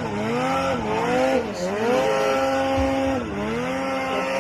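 High-revving snowmobile engine, its pitch dropping sharply and climbing back up three times, holding steady between dips.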